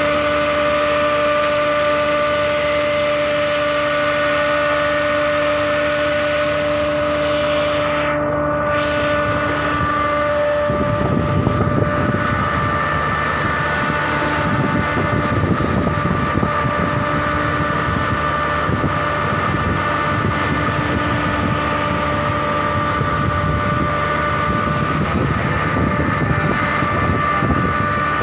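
Fishing boat's engine running steadily, a constant hum with several held tones. About ten seconds in, a low rushing noise joins it and stays.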